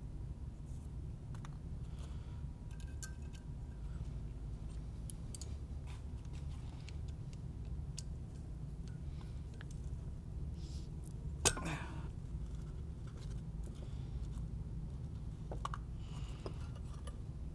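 Light metallic clicks and clinks from handling small valve keepers and a valve spring compressor on a cylinder head. One sharper click comes about two-thirds of the way through, over a steady low hum.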